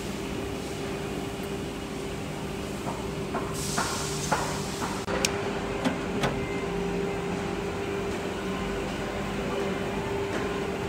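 Steady electrical machine hum, with a short hiss and a few sharp clicks and knocks in the middle.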